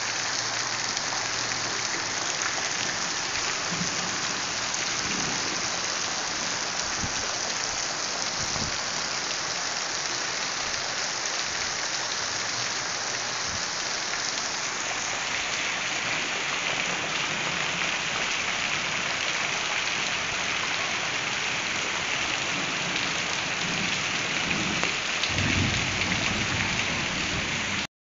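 Heavy rain pouring steadily, with water streaming off a roof edge and splashing onto the paving below.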